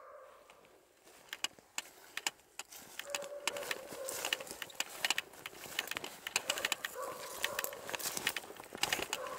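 Rapid movement through dry leaf litter and undergrowth: a dense crackle of rustling leaves and snapping twigs that grows louder over the first few seconds, with a few short held tones now and then.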